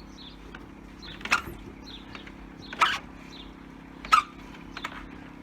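Sharp mechanical clunks, four of them about every second and a half, from the drivetrain of a 1984 Honda V65 Magna VF1100C as the bike is pushed in gear to force its long-stood engine to turn over with the spark plugs out, the back wheel partly turning and partly skidding. A steady low hum runs underneath.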